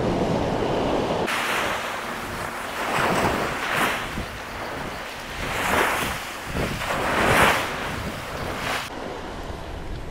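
Surf washing onto a sandy beach, the hiss swelling and fading several times, with wind buffeting the microphone.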